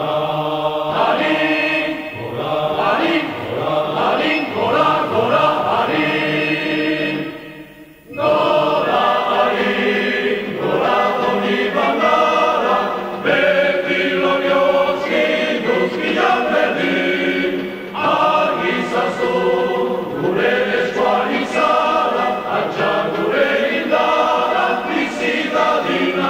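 Choir singing, several voices together, with a short break about eight seconds in before the singing starts again.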